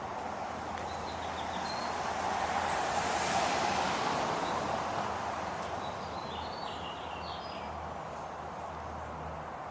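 A vehicle passing by, its noise swelling to a peak about three seconds in and then fading away, with birds chirping now and then.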